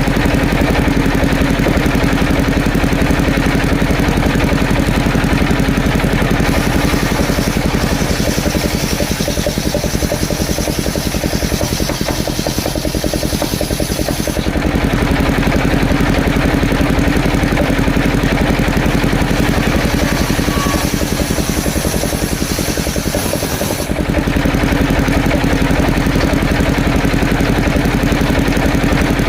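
Engine-driven wood saw running continuously with a steady hum. Its sound shifts as the load changes: a high hiss joins about a quarter of the way in, fades around the middle, and the opening sound returns near the end.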